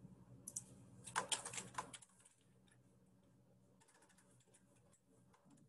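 Faint typing on a computer keyboard: a quick run of key clicks in the first two seconds, then a few scattered light taps about four seconds in.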